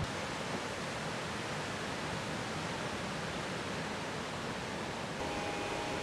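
Steady, even roar of breaking surf. About five seconds in, a droning engine note joins it.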